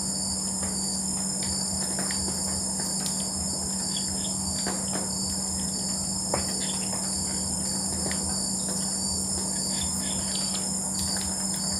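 Night chorus of crickets and other insects: a steady high-pitched trilling with a faster regular chirping pulse beneath it, over a low steady drone.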